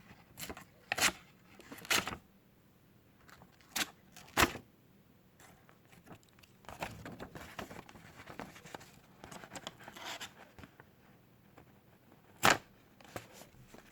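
A sheet of paper tearing and crinkling as the dull blade of a Swiss Army pocket knife is pushed through it in the paper test, with several short, sharp rips. The blade is too blunt to slice cleanly.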